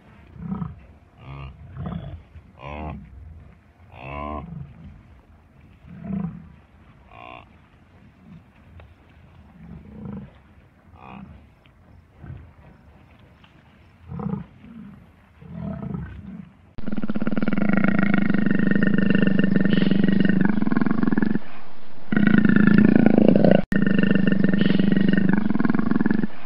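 African buffalo giving short low grunts, one every second or two, then from about 17 s in a leopard calling loudly in long unbroken stretches, broken once by a short pause.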